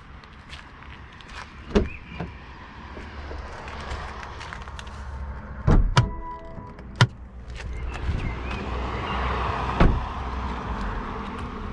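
Car doors on a 2023 BMW 118i being opened and shut: several clunks spread through, the loudest about six seconds in. A short electronic beep sounds right after it.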